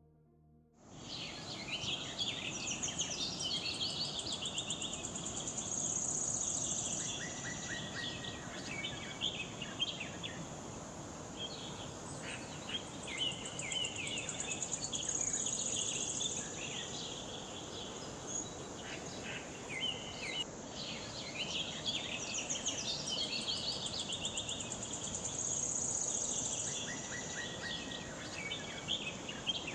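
Forest ambience starting about a second in: many birds chirping and trilling over a steady rushing hiss of falling water, with a high insect buzz that swells about three times.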